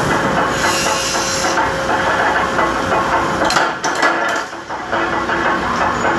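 Mechanical punch press and other factory machinery running with a steady clatter, and a few sharp strikes about three and a half to four and a half seconds in as the press works.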